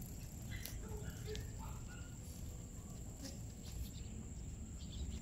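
Faint outdoor background: a low rumble with a steady high-pitched whine and a few faint short chirps and clicks.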